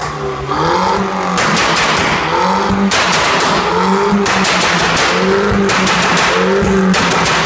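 Tuned MINI R56's engine blipped repeatedly through its twin centre exhaust, each rev followed by a rapid crackle of exhaust pops and bangs on the overrun. This is the tune's flame-spitting 'barbecue' exhaust mode at work.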